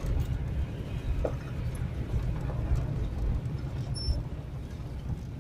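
Motor vehicle driving slowly over a rough dirt track, heard from inside: a steady low engine and road rumble with faint knocks from the bumps.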